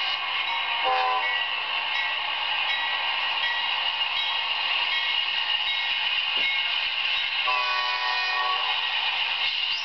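Norfolk Southern freight locomotive's air horn sounding for the grade crossing: a short blast about a second in and a longer one as the locomotive reaches the crossing near the end. Under it, the steady noise of the approaching train and a crossing bell ringing at an even beat.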